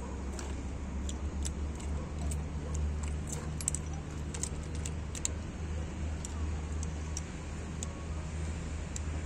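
Small metallic clinks and ticks at an irregular pace over a steady low machine drone.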